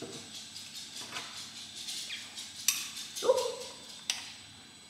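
A metal spoon clinks and scrapes against a ceramic plate of breakfast cereal several times. About three seconds in, the loudest sound is a single short bark from a miniature dachshund.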